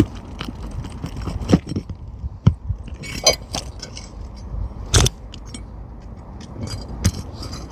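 Pry bar working under asphalt roof shingles to pop roofing nails out of the decking: scattered metal clicks and short scrapes, the sharpest click about five seconds in.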